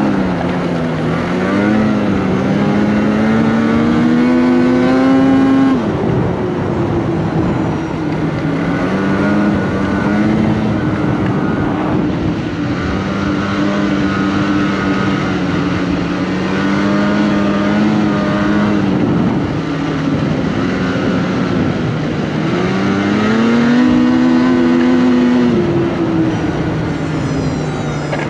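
Polaris Patriot 850 two-stroke twin snowmobile engine running at trail speed. The engine note climbs, then drops off sharply about six seconds in, rises and falls again through the middle, and climbs once more before dropping off near the end.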